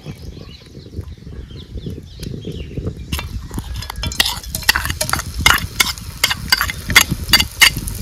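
Metal kitchen utensils clinking and scraping, with sharp clinks starting about three seconds in and coming several times a second over a low rumble.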